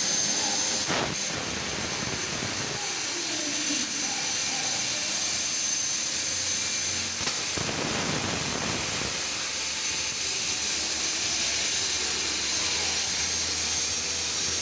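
Fiber laser cutting machine with a Raytools head cutting a steel plate: a steady hissing rush of gas and air from the machine, with a thin high whine over it and a brief louder rush about halfway through.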